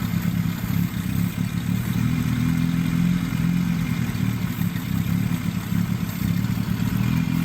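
Toyota 22R four-cylinder engine idling steadily with a vacuum leak, its running note swelling slightly now and then.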